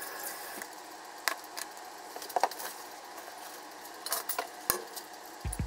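Scattered light clinks and taps of dishes and cooking utensils being handled over a faint steady kitchen hiss, with a few duller knocks near the end.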